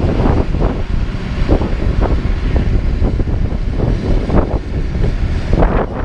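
Diesel engines of a LeeBoy 8515B asphalt paver and a dump truck running, with irregular clanks and knocks as the raised dump box feeds asphalt into the paver's hopper.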